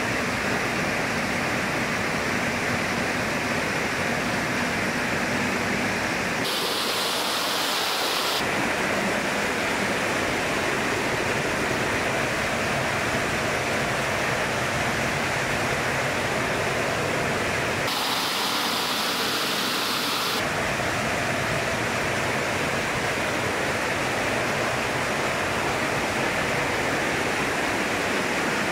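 Steady rush of water jetting into an engine block to flush out rust deposits. Twice it briefly turns hissier and thinner.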